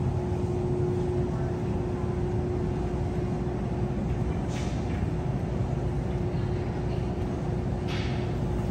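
Steady low hum and rumble of refrigerated freezer cases and store ventilation, with a constant mid-pitched tone running through it. Two brief swishes come about halfway and near the end.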